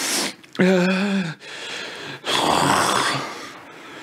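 A man's pained groan, held briefly about half a second in, followed by a long, forceful hissing exhale, as he grimaces through a burning sour taste.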